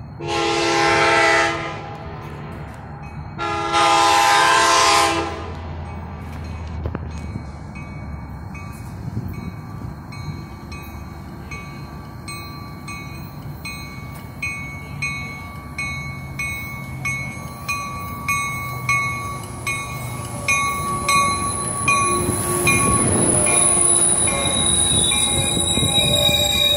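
Trinity Railway Express commuter train sounding two long horn blasts, then approaching and pulling into the station. Its wheels click at a steady rhythm and the sound grows louder, and a high steady squeal joins near the end as it slows past the platform.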